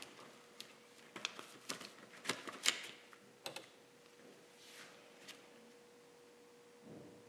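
Faint light clicks and taps from handling painting tools, a dozen or so in the first three and a half seconds, then fewer, over a faint steady tone.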